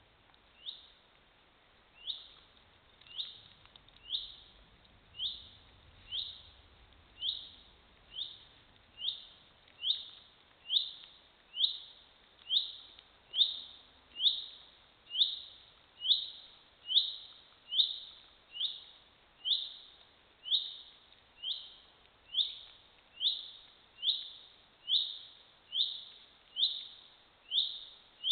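A bird calling one short, falling note about once a second, over and over at an even pace. The calls grow louder over the first several seconds, then hold steady.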